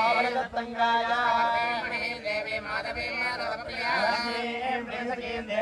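Several men's voices chanting Vedic mantras together, the recitation going on without a break.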